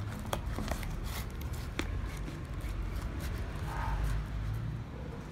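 A metal fork stirring clear glue-and-borax slime in a plastic tub, with irregular clicks and short scrapes of the fork against the plastic as the slime thickens.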